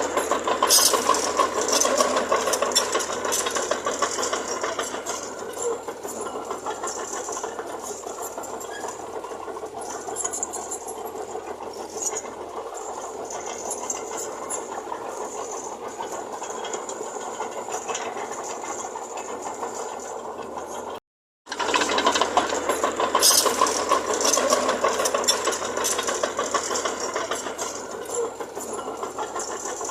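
Earthmoving machinery running with a continuous rattling clatter. The clatter is loudest at the start of each stretch and cuts out briefly about two-thirds of the way through.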